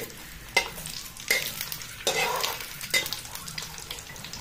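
Whole spices sizzling and crackling in hot mustard oil in a metal kadai, with a metal spatula stirring and scraping against the pan in several sharp clinks.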